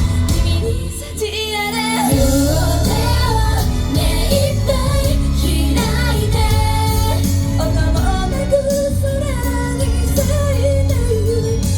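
Japanese female idol group's pop song performed live: female voices singing over a loud backing track with heavy bass. The music thins out briefly about a second in, then the full beat comes back in.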